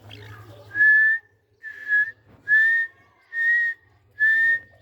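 White teetar (partridge) calling: a series of about five loud, clear whistled notes of steady pitch, evenly spaced just under a second apart.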